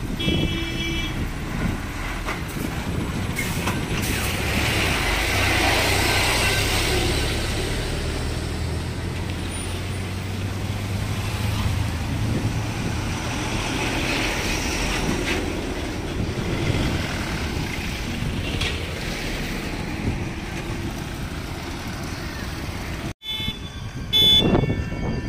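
Road traffic: heavy lorries passing, with engine rumble and tyre noise. A short horn toot comes about half a second in, and more honking near the end.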